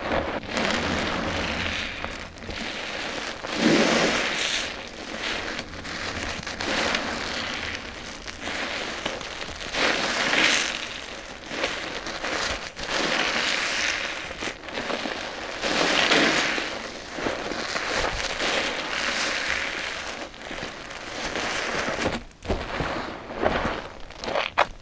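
A sponge soaked with thick shampoo suds, squeezed and kneaded by hand: wet squelching and crackling foam, with soapy water running off. The sound comes in repeated swells as the sponge is pressed and released.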